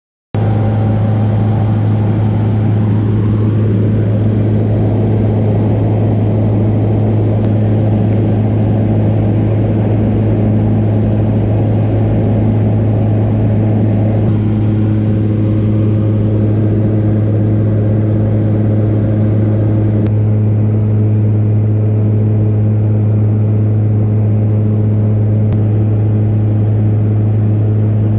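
Cabin sound of a small high-wing plane in flight: the steady drone of its piston engine and propeller, with a strong low hum and a few steady higher tones above it.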